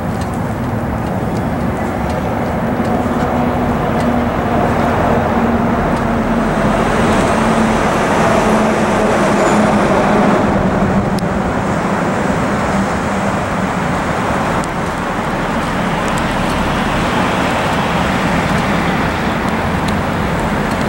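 Road and traffic noise heard from a vehicle, with a semi-trailer truck passing close alongside. Its engine hum grows loudest around the middle, then fades.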